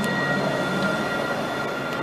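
Alstom Citadis low-floor tram passing close by, with a steady electric whine of several high tones over the rumble of its wheels on the rails.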